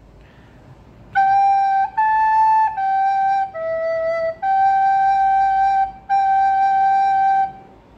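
Plastic soprano recorder playing a short phrase of six separate notes, G, A, G, E, G, G, with the last two held longer.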